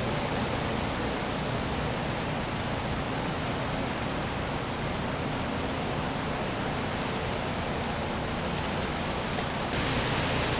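Steady, rain-like hiss of meltwater and ice dripping and falling from ice-coated trees; it grows a little louder and brighter near the end.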